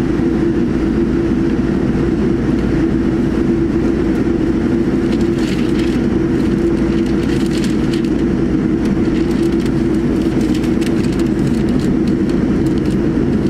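Inside the cabin of a Boeing 787-9 rolling slowly onto the runway: its GEnx engines at low taxi thrust give a steady hum over the cabin air noise. From about the middle on there are light scattered clicks.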